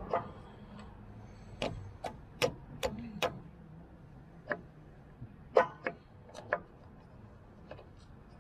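Scattered sharp metallic clicks and clinks, about a dozen at uneven intervals, some with a brief ring. They come from a hand and tool working at the belt pulley and fittings on a stump grinder's engine shaft. The loudest falls a little past the middle.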